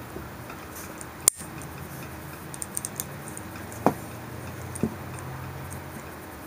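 Small metal clicks and ticks of steel parts being fitted by hand: a cross pin going into the bolt of a Remington Model 11 shotgun. A sharp click comes about a second in, and lighter ticks and clicks follow around three, four and five seconds in.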